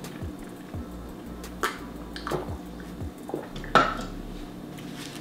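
Close-up eating sounds of a cinnamon roll: a handful of short clicks and wet smacks, the loudest almost four seconds in.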